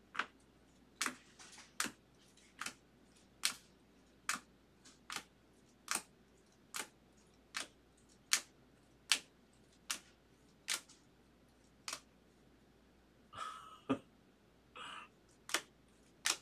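Plastic-sleeved baseball cards being flipped one at a time through a stack, each card clicking sharply as it is moved to the back, about one click every 0.8 seconds. Two brief scraping sounds come near the end.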